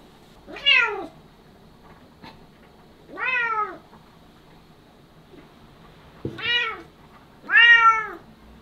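Bengal cat meowing loudly, four calls a couple of seconds apart, each sliding down in pitch; the last is the loudest.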